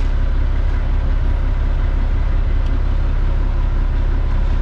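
Fire truck engine idling steadily with a deep, even rumble, heard from inside the cab.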